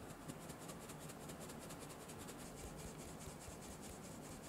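Cake flour and ground almonds being sifted through a fine metal mesh sieve held over a glass bowl, the sieve shaken in a quick steady rhythm of about nine soft, scratchy strokes a second as the powder rasps through the mesh.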